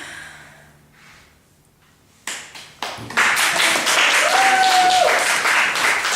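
Audience applause breaking out about three seconds in after a quiet pause, many hands clapping loudly and densely.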